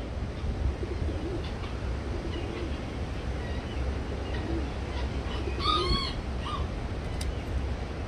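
Silver pheasants in their pen with a few short arched calls close together about six seconds in, and faint chirps elsewhere, over a steady low rumble.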